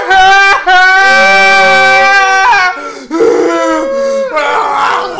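Two men wailing and sobbing loudly, open-mouthed: one long held wail of about two and a half seconds, then shorter broken cries.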